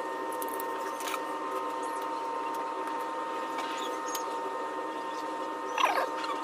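A steady, unchanging whining hum, with a few faint light clicks and a brief voice near the end.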